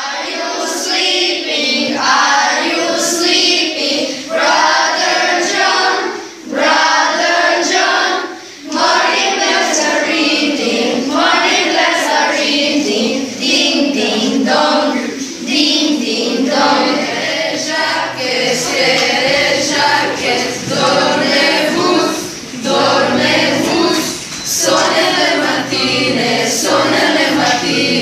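A group of children singing together without instruments, in phrases separated by short breaks.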